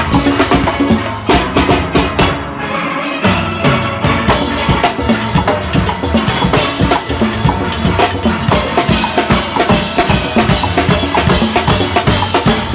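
Steelband engine room playing a fast, driving rhythm: drum kits with toms and cymbals, with steel pans in the mix. The low drums drop out briefly about two to four seconds in, then the full beat comes back.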